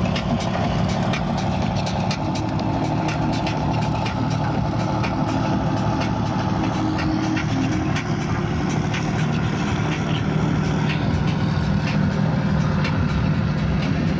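Engine of a large art car built as a full-sized pirate ship, running steadily with a low hum as it drives slowly past, with scattered sharp ticks over it.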